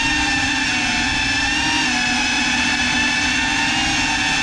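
Small FPV quadcopter's electric motors and propellers whining steadily, heard loud and close from the drone's own camera. The pitch dips a little about two seconds in as the throttle shifts.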